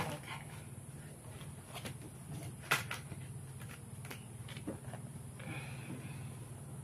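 Tarot cards being handled and laid down: scattered soft taps and clicks, the sharpest about two and a half seconds in, over a steady low hum.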